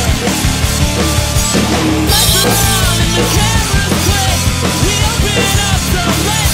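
Acoustic drum kit played hard along to a loud recorded rock song, with a cymbal crash about two seconds in.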